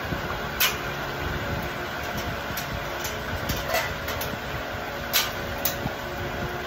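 A steady mechanical hum, like a running fan, with a handful of sharp metallic clinks from steel feeding bowls and a stainless-steel dog cage as puppies are fed; the loudest clinks come about half a second in and about five seconds in.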